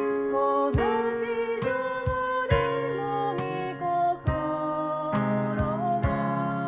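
Small vocal group singing a slow worship hymn with keyboard accompaniment, the chords struck a little under once a second.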